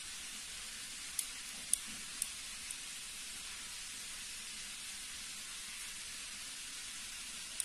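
Leatherman Surge multitool's steel parts clicking as it is handled and folded: four sharp clicks about half a second apart starting about a second in, and one more near the end, over a steady background hiss.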